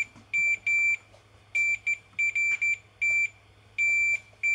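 Fluke multimeter's continuity beeper sounding in a string of short, irregular high beeps as the probes touch and lift off capacitor pads on a Nintendo Switch board, with a longer steady beep starting near the end. The beep signals continuity to ground, which he wonders may be a short.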